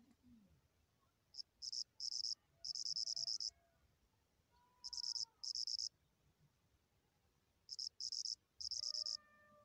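Cricket chirping in short, high-pitched trills, coming in groups separated by pauses of a second or more.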